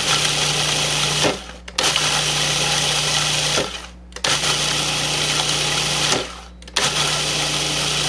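Food processor motor pulsed on and off in four runs of one to two seconds with short pauses, chopping a buttery cookie-crumb mixture until clumps form.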